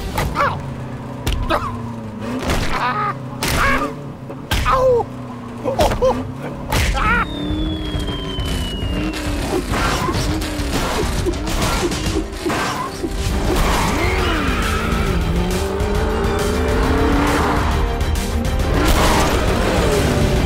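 Race car sound effects: engines revving up and down and tires squealing, with several sharp hits in the first few seconds and a high falling whistle about seven seconds in, over background music.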